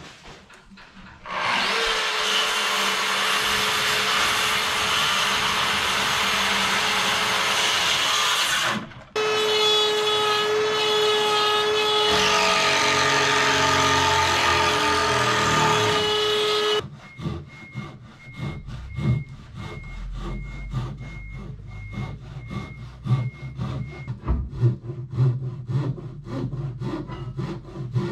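Power tools cutting wood: a loud steady run with a short break about nine seconds in, then a second run that stops about seventeen seconds in. After that comes a quick, rhythmic back-and-forth of hand sawing through timber.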